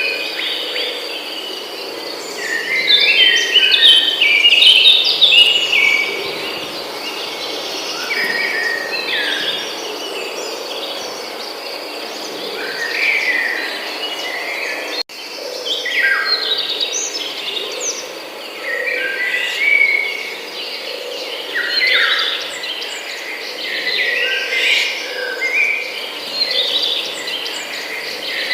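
Several songbirds singing and chirping in quick, varied phrases that come in clusters, over a steady high insect drone, as in a forest.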